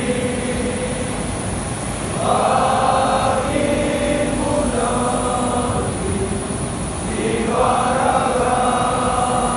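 A large group of men chanting together in unison, in phrases a second or so long with short gaps between them. A steady rumble runs underneath.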